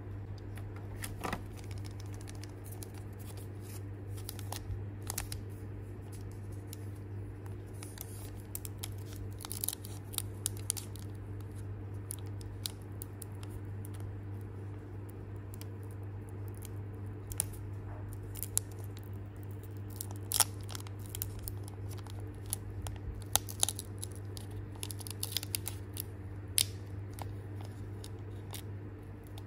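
Foil booster pack wrapper crinkling and tearing as fingers work it open, with many short, sharp crackles that are loudest and thickest in the second half. A steady low hum runs underneath.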